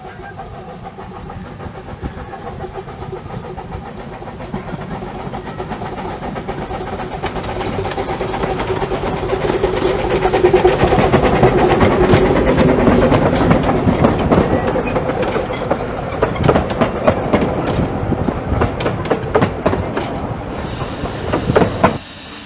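A 15-inch gauge steam locomotive and its carriages pass by. The sound builds to a peak about halfway through, then fades behind a run of sharp clicks from the wheels going over the rail joints.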